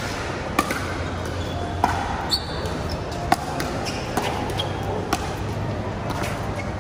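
Pickleball paddles striking a plastic ball in a fast rally: sharp pops about once a second over a steady background murmur.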